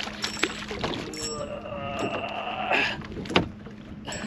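A hooked crappie being reeled in on a spinning rod and brought aboard: scattered clicks and handling noise, then a sharp knock about three and a half seconds in, over a steady low hum.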